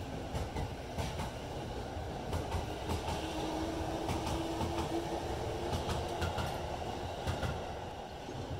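JR East E233-7000 series Saikyo Line electric train pulling in and slowing to a stop at the platform. The wheels rumble and click over the rail joints, a steady whine runs from about three to seven seconds in, and the sound dies down near the end as the train comes to rest.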